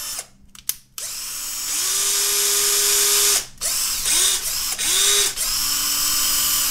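Cordless drill/driver motor run in several trigger pulls, each spinning up with a rising whine and winding down: one long run of about two and a half seconds, then a string of short blips.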